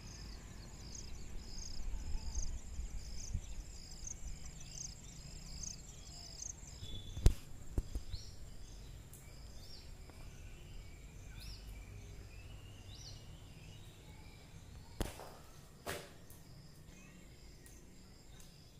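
Insects chirping in a steady series of short, high pulses over a low rumble, fading in the second half. A few sharp clicks cut through, the loudest about seven seconds in.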